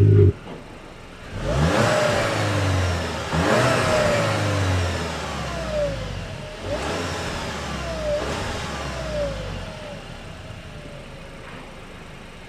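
Škoda Octavia RS 2021 revved at a standstill in about four short blips, each rising and falling in pitch. The exhaust note is partly synthetic, played by the Panthera active sound generator, a speaker mounted under the car. A loud steady drone cuts off suddenly right at the start, and the revving dies away towards the end.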